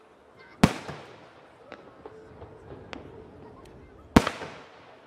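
Aerial firework shells bursting: two loud booms about three and a half seconds apart, each trailing off as it echoes, with smaller sharp pops and crackles in between.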